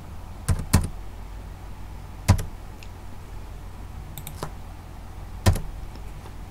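Computer keyboard keystrokes: a handful of separate, sharp key clicks at irregular spacing, over a faint steady low hum.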